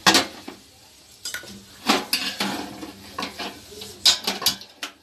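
Large metal cooking pot being set down and shifted on a gas stove's grate: a run of metallic clanks and scrapes, the loudest right at the start.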